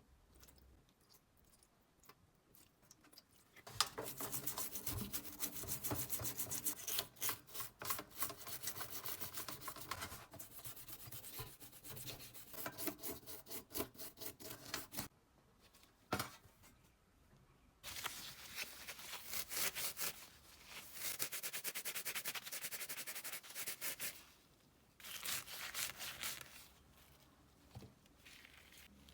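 Rapid back-and-forth rubbing strokes, in three long bouts separated by short pauses, with a single sharp click between the first two.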